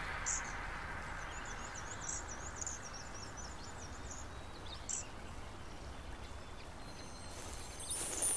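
Faint outdoor garden ambience: a low steady hiss with a few faint, high bird chirps in the first half.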